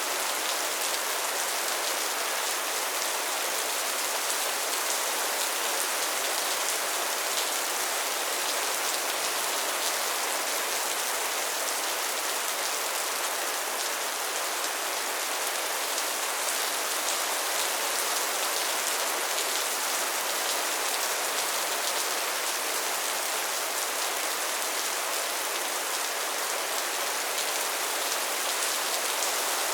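Steady rain falling: an even, unchanging hiss of many drops.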